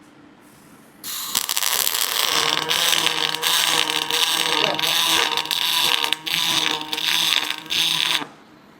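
Industrial robot machinery working: a loud, harsh rattling hiss over a low steady hum. It starts about a second in and cuts off suddenly near the end, with a couple of short breaks.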